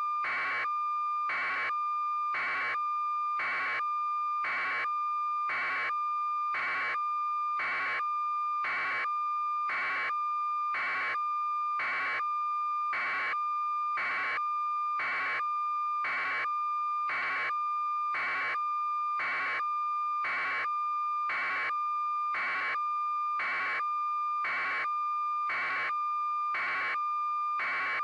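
Electronic beep tone: a steady high tone with a beep pulsing evenly about once a second.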